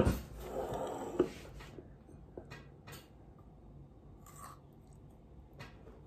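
A stemmed glass set down on a table with a knock, then soft chewing of grapes with a few faint clicks.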